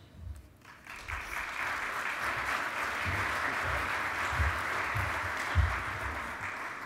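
Conference audience applauding. It builds about a second in, holds steady, and fades near the end, with a few low thumps underneath.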